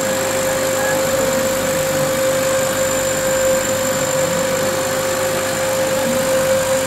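Laser engraving machine running as it cuts clear acrylic: a steady hum and hiss with a constant mid-pitched whine and a faint high tone, unchanging as the head moves along the cut.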